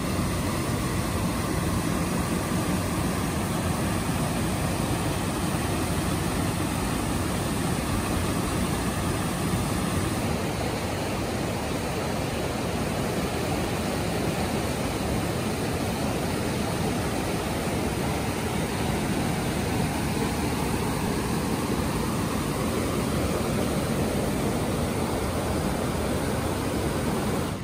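Mountain river rapids: whitewater rushing over boulders as a steady, full rush of water.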